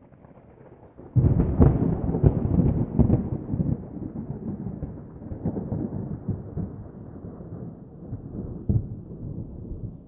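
Distant thunder: a faint low rumble breaks into a loud crackling roll about a second in. The roll then slowly rumbles away, with a few smaller swells.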